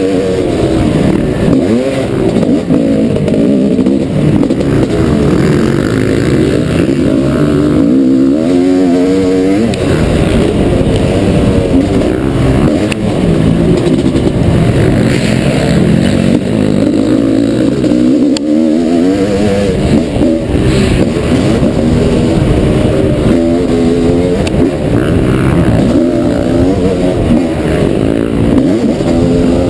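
1989 Honda CR500's single-cylinder two-stroke engine, heard onboard, running hard around a motocross track. Its pitch climbs and drops again and again as the throttle is opened and shut.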